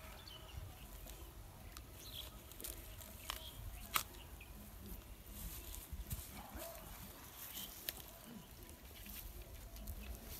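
Quiet outdoor ambience: a low steady rumble, scattered sharp clicks (the loudest about four seconds in) and faint animal calls.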